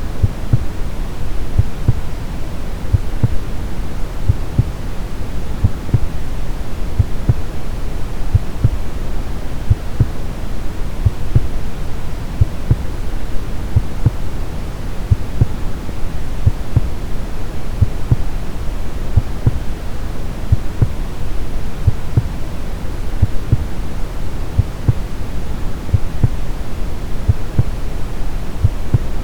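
Brown noise, a steady deep hiss weighted to the low end, with a regular heartbeat thumping low underneath it.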